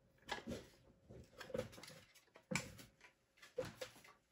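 A few faint knocks and scrapes from hands moving the scooter's metal steering stem tube and plastic front fork parts, spaced about a second apart.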